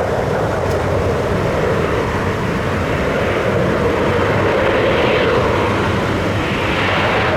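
Jet airliner engines running, a steady rushing noise that grows a little stronger toward the end.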